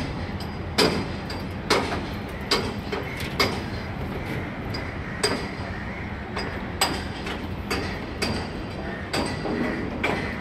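Hammer blows ringing on metal, as on aluminium formwork being set, about one a second and irregularly spaced, each with a short clanging ring, over a steady low rumble.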